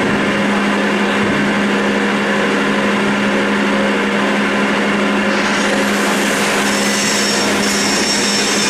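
CNC roll turning lathe cutting grooves into a metal roll: a steady machine hum under dense cutting noise. About five seconds in, a high hiss joins, with a thin high whine over it near the end.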